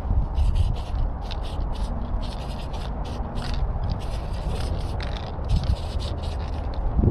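Aerosol spray paint can hissing in many short bursts as paint is sprayed onto a freight car's metal side, over a low rumble of wind on the microphone.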